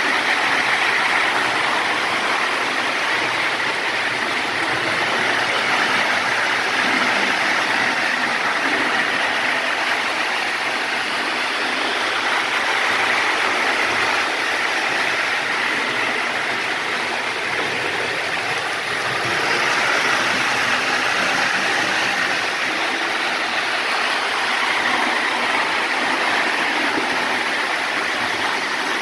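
Lionel 221 O-gauge model steam locomotive running on the track: a steady whir of its electric motor, gears and wheels on the rails, swelling and easing slightly as it goes around the layout.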